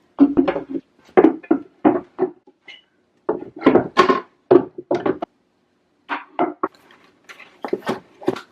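Cleaning cloth scrubbing a painted cabinet side in runs of short back-and-forth strokes, with brief pauses between runs.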